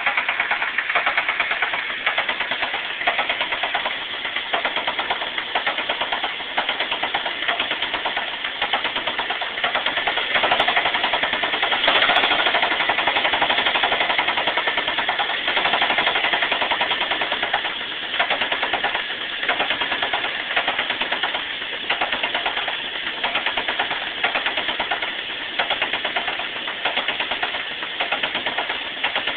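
1999 Saturn SC2's 1.9-litre twin-cam four-cylinder engine running with a fast, even ticking. New spark plugs, plug wires, timing chain and chain tensioner have not cured the tick.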